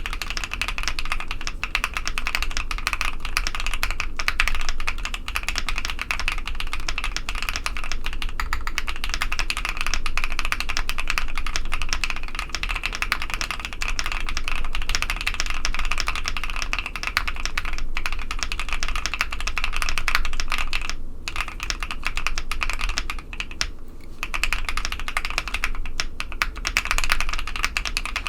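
Steady fast typing on a custom Tofu65 mechanical keyboard with lubed KTT Strawberry linear switches on a polycarbonate plate with PBT keycaps: a rapid run of soft, deep key clacks, pausing briefly a couple of times near the end.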